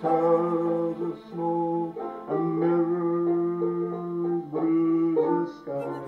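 Folk song: a voice sings long held notes over plucked guitar, changing note about once a second.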